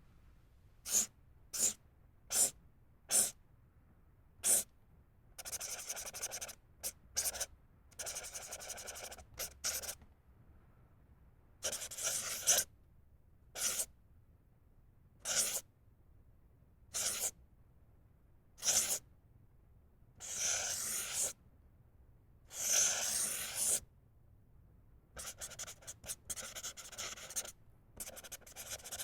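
Felt-tip permanent marker (Sharpie-type name pen) writing and drawing: a run of short single strokes, then longer scribbling passes that each last one to two seconds, with pauses between them.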